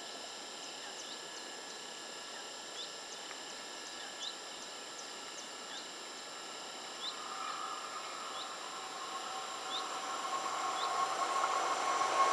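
A bird repeats a short chirp about once a second over quiet open-air background. From about halfway in, the approaching WESTbahn Stadler KISS double-deck electric train's hum comes in and grows steadily louder.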